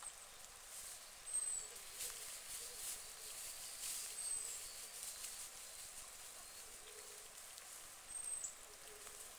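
Quiet pond ambience: faint splashing and rustling from white domestic ducks dabbling and preening on the water, with three short, high chirps from a small bird, about a second, four seconds and eight seconds in.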